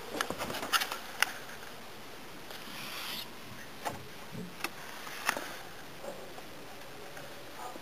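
Quiet room with a handful of small sharp clicks and taps and a brief rustle about two and a half seconds in: handling noise of a handheld camera moving over a tabletop model.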